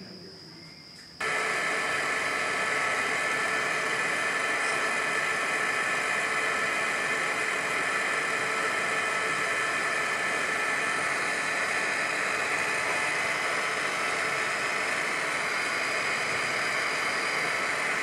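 Steady mechanical whir, a broad even hiss with a few faint steady tones, starting abruptly about a second in and holding level. For the first second, a thin steady insect trill.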